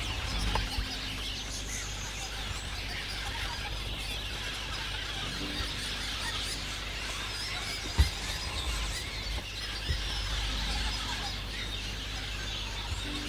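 Birds chirping and calling in the bush, with a single sharp knock about eight seconds in.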